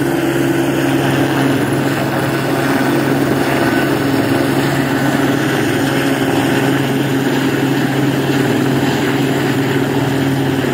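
Eurocopter AS350 B3 Écureuil helicopter's main rotor and single turboshaft engine running steadily, lifting a slung pylon section.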